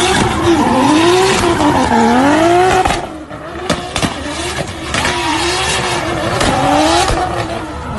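Drift car's engine revving hard, its pitch rising and falling about once a second as the rear tyres spin and screech in a cloud of tyre smoke. The tyre noise is loudest for the first three seconds, then eases while the revving carries on.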